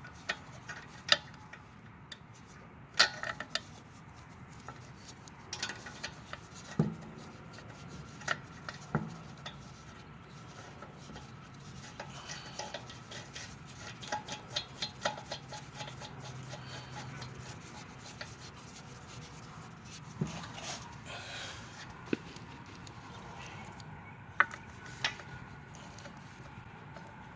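Scattered metallic clinks, rattles and jangling of lug nuts and hand tools being handled while a car's rear wheel is refitted, with a few sharper clacks of metal on metal.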